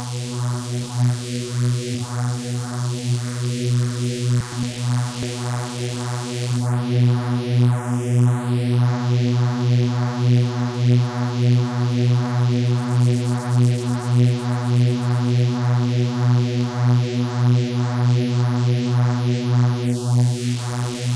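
A single sustained neuro bass note from a Phase Plant software synth. Two sawtooth oscillators run through a phaser, and the sound pulses and swirls as the phasing shifts. About 7 s in, the top end sweeps down and back up as an effect setting is turned, and it sweeps again near the end.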